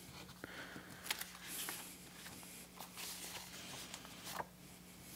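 Faint rustling of paper being handled, with scattered light clicks and taps, over a steady low electrical hum.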